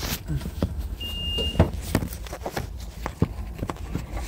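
Parts being fitted back in place by hand: a run of irregular clicks and knocks, with one short high beep about a second in, over a low steady rumble.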